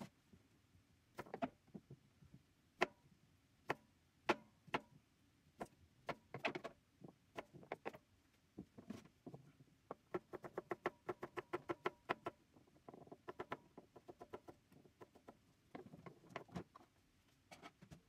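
Kitchen knife chopping on a cutting board: separate knocks at first, then a fast, even run of chops about halfway through, followed by shorter runs.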